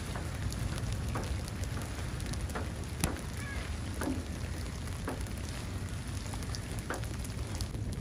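Steady rain falling on the ground, with scattered drops ticking and a single sharper tick about three seconds in.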